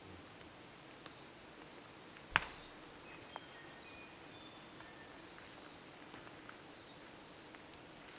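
Quiet forest ambience with a faint steady hiss. One sharp knock about two seconds in stands out above everything else, with a few fainter clicks scattered around it. Several short, thin, high bird notes come through in the middle.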